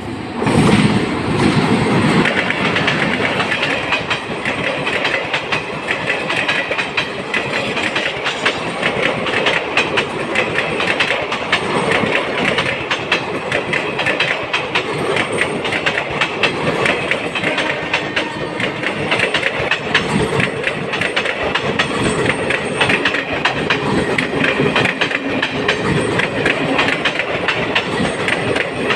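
ICF passenger coaches of an Indian express train passing close by, their wheels clattering steadily over the rail joints. The sound starts suddenly and is loudest about a second in.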